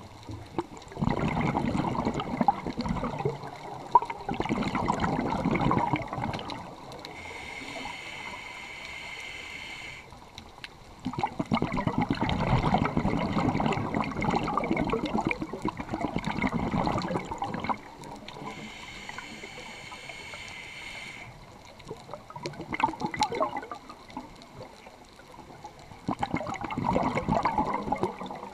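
Scuba diver breathing through a regulator underwater: repeated bursts of exhaled bubbles rushing and gurgling, a long one in the middle, with a couple of thin, high hissing inhalations through the regulator between them.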